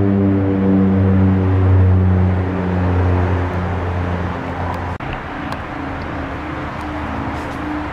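Low, droning background music with slowly changing held notes fades out. After a cut about five seconds in, a steady rushing noise of aircraft and airport traffic continues.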